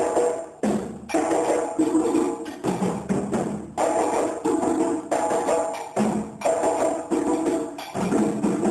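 Djembe and dun-dun drums playing a fast, dense rhythm of hand and stick strokes.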